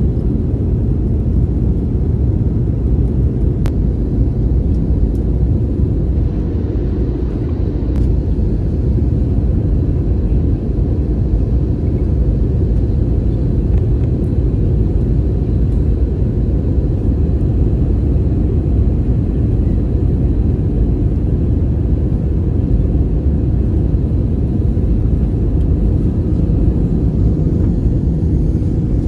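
Steady low rumble of cabin noise inside a jet airliner on final approach, engine and airflow noise heard from a window seat with the flaps extended.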